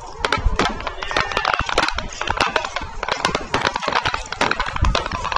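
Aerial fireworks exploding in quick succession: a dense string of sharp cracks and pops, with deep booms from larger shells about half a second in and again near the end.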